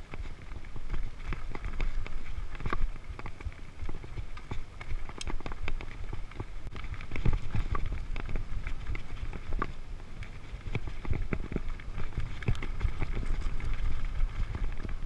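Mountain bike riding over a dirt singletrack: a steady low rumble of tyres on the trail, with frequent clicks, knocks and rattles from the bike over bumps.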